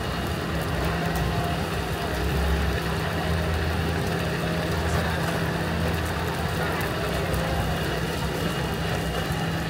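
A steady low engine hum over a busy outdoor background noise.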